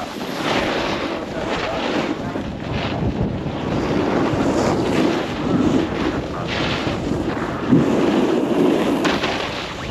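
Snowboards sliding and carving over groomed snow, a rushing scrape that swells as the edges bite on turns, with wind buffeting the microphone.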